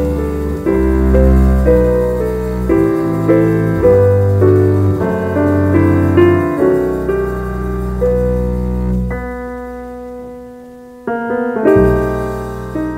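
Jazz piano music: chords struck about once a second, each dying away, over a deep bass line. The playing thins and fades out about nine seconds in, then a loud new chord comes in near the end.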